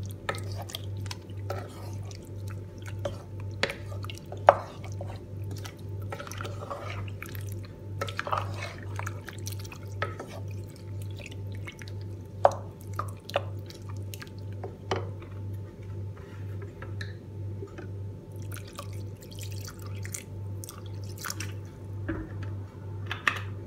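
Spoon stirring sambar (cooked vegetable pieces, tamarind water and spice powders) in a pot, with wet sloshing and scattered sharp clinks of the spoon against the pot. A steady low hum pulsing about twice a second runs underneath.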